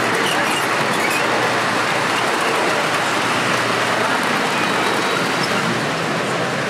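Model train of IRT redbird subway cars running on its track, a steady rolling rumble of wheels and motors.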